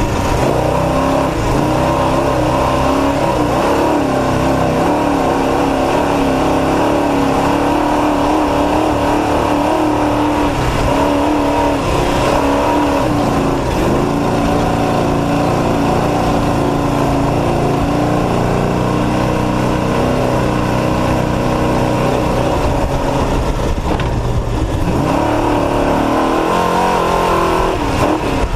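Desert race truck's engine running hard at racing speed, its pitch dropping and climbing again with the throttle a few times, over a steady rush of noise from the moving truck.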